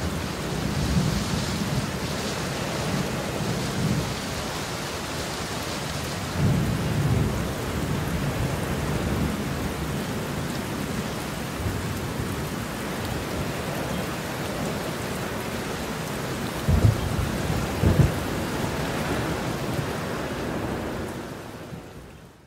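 Heavy rainstorm: a steady rush of downpour with repeated low rumbles of thunder. Late on come two sharper booms about a second apart, then the sound fades out.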